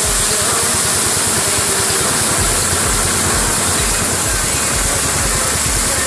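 Small petrol stationary engine running at high throttle, driving a home-built rice thresher, with a steady loud hiss over a low uneven pulsing.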